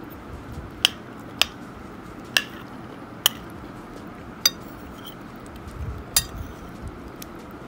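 Metal spoon clinking against a ceramic plate while scooping food, about six sharp clinks at irregular intervals, one of them ringing briefly.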